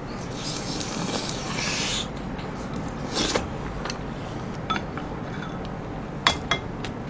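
Close-up mukbang eating sounds: food chewed with the mouth full, a wooden spoon scraping in a ceramic bowl, and a couple of sharp clicks of the spoon against a dish near the end.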